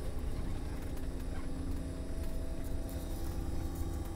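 Steady low rumble of a sleeper bus on the move, heard from inside its cabin, with a faint steady hum over it.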